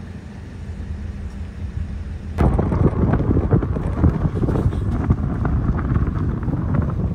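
Wind buffeting the microphone, a loud rough rumble that starts suddenly about two and a half seconds in, over a steady low hum from a moving car.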